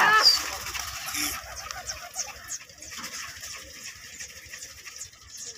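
A shout breaks off in the first half second, then a flock of domestic pigeons flaps and flutters overhead, faint against open-air background.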